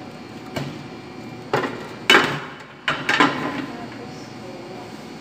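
Several sharp knocks and clunks from things being handled and set down at a kitchen counter. The loudest comes about two seconds in, with a quick pair around three seconds.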